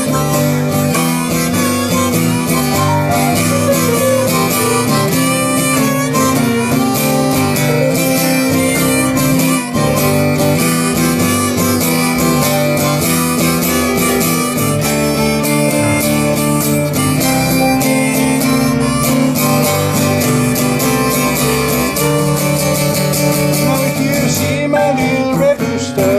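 Instrumental break of a blues number played by a small string band: two fiddles carrying the lead over acoustic guitar and upright bass, at a steady rhythm.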